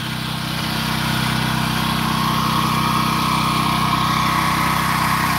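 Steady engine drone from a parked food truck, getting louder over the first couple of seconds, with a higher whining tone joining it about two seconds in.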